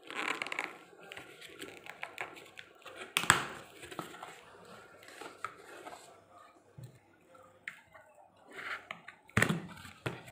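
Packing tape being cut with scissors and torn off a cardboard box, with the cardboard flaps rustling and creaking. There is a sharp crack about three seconds in and another near the end.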